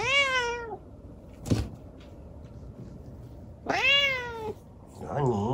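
Tabby kitten meowing loudly twice, each meow rising then falling in pitch, with a single sharp thump between them.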